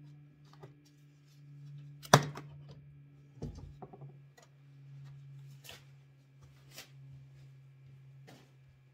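Scattered clicks and knocks from hands working on the truck's washer-fluid reservoir and its fittings while draining it. One sharp click about two seconds in is the loudest, with a duller thud soon after, all over a steady low hum.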